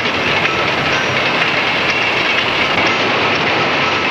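Freight train rolling along the track: a steady, even noise of wheels and cars on the rails, heard on an old 16mm film soundtrack.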